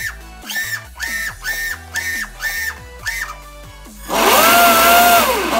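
Electric motor of an RC speedboat spinning up on the bench: a whine that rises in pitch, holds for about a second and winds back down near the end, after a run of short chirping tones several a second in the first few seconds.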